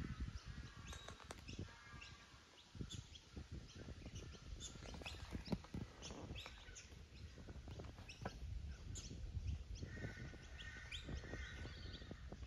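Wild birds chirping and calling, many short quick chirps, faint over a low rumble.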